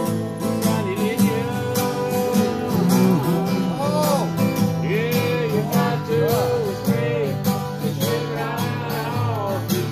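Two acoustic guitars strummed and picked in a country-bluegrass style, with a voice singing the melody over them.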